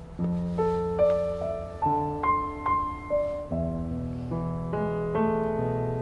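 Background score of slow solo piano, single notes struck about twice a second over held low chords.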